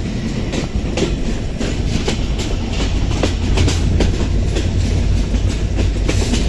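Benapole Express passenger train running, heard from aboard: a steady low rumble of wheels on track with frequent sharp clacks and rattles.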